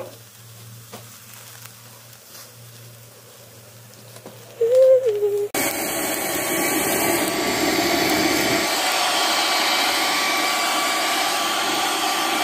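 Electric hair dryer switched on suddenly about halfway and then running steadily, blowing air onto burning charcoal in a barbecue grill to fan the fire. Before it starts there is a faint low hum and a brief pitched sound.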